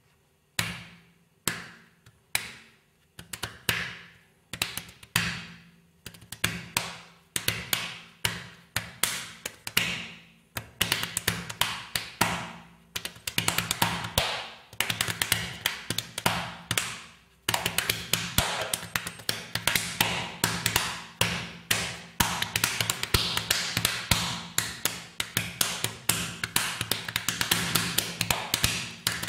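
Percussive music of sharp taps, sparse at first, about one a second with each ringing briefly, then coming ever closer together until they run as a rapid, busy stream for the second half.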